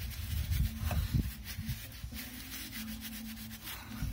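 Rag rubbing and wiping oil off the fittings of a Velvet Drive marine transmission, with rough scrubbing strokes strongest in the first second and a half and lighter rubbing after. A faint steady low hum runs underneath.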